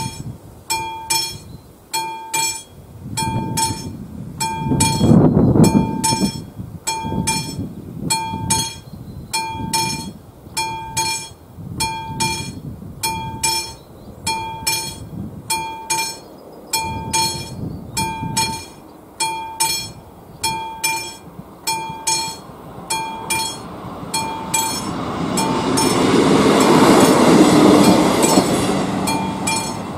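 Classic level-crossing bell ringing steadily, a strike about every two-thirds of a second, with a low rumble swelling about five seconds in. Near the end a ČD class 814/914 Regionova diesel railcar set passes over the crossing, its noise building to a peak and then easing while the bell keeps ringing.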